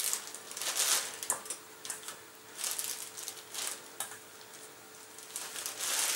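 Plastic bag of potato flour crinkling in a series of short bursts as marinated chicken pieces are dropped into it by hand from a steel bowl.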